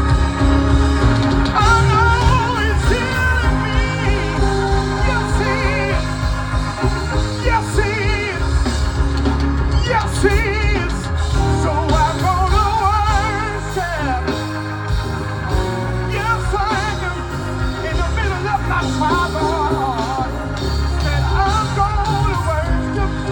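Live gospel worship music: singers holding long, wavering vibrato lines over a band with a steady deep bass.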